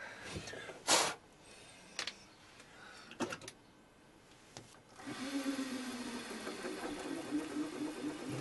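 Metal hand tools clink and knock as they are handled and set down, with one sharp knock about a second in. About five seconds in, a drill press motor starts and runs with a steady hum, turning a 4 mm reamer in a brass carburettor body.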